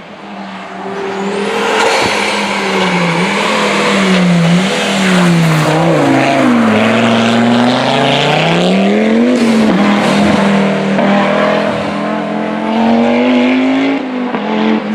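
Audi Quattro rally car's inline five-cylinder engine at full racing revs. Its pitch rises and falls through the gears, dropping sharply about six seconds in and climbing back about three seconds later, while the sound grows louder over the first two seconds.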